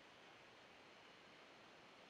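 Near silence: a faint, steady hiss, with no thunder.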